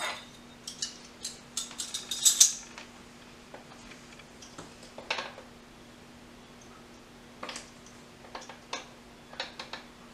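Metal measuring spoons clinking against each other and against spice jars while cinnamon is measured out: a quick run of clicks about two seconds in, then single clinks every second or two.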